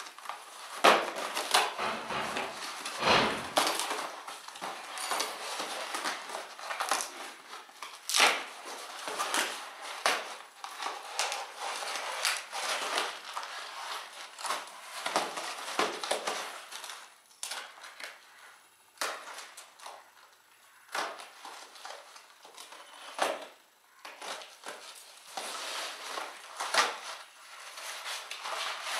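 A cardboard box and its packing tape being cut, ripped and pulled open by hand: irregular tearing, crackling and rustling strokes, busiest in the first half and sparser later on.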